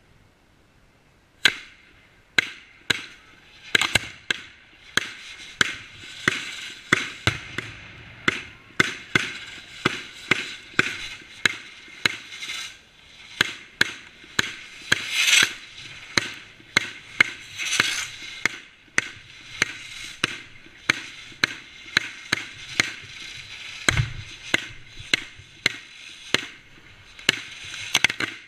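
Fireworks going off on the ground close by: a long run of sharp bangs, about one to two a second, with hissing and crackling between them. It starts about a second and a half in.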